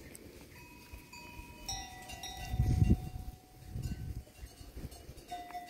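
Bells on a grazing sheep flock ringing, several at different pitches overlapping and coming and going, with a low rumble about halfway through.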